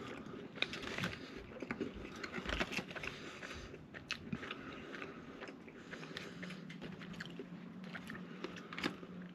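Close-up chewing of a McDonald's chicken nugget dipped in ranch: the crisp breading crunches amid wet mouth clicks, busiest in the first few seconds, with a low steady hum over the last few.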